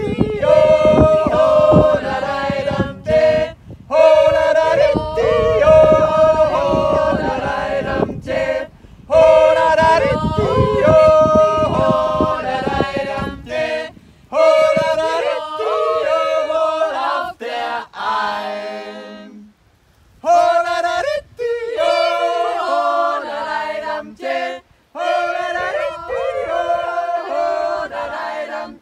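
A small mixed group of women's and men's voices yodeling together a cappella, in phrases broken by short pauses.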